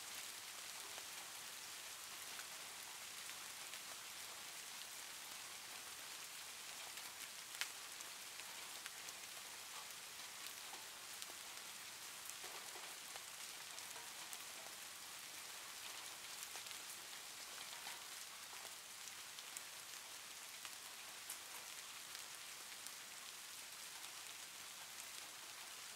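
Steady rain hiss with scattered faint drop ticks.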